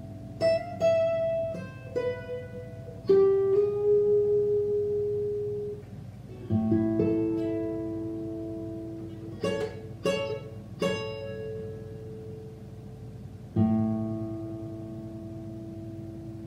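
Solo steel-string acoustic guitar fingerpicked slowly: a few separate plucked notes and chords, each left to ring, then a final chord struck near the end and left to ring out as the piece closes.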